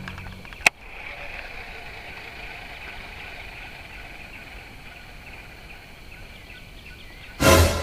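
Outdoor lakeside ambience with a steady high buzz of insects. A sharp click comes about a second in, and a short loud burst of noise comes near the end.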